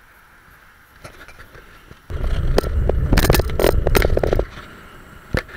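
Wind and road rattle on a bike-mounted camera during a road ride: a loud low rumble with crackling clicks that starts about two seconds in and stops about two seconds later, then a single sharp click near the end.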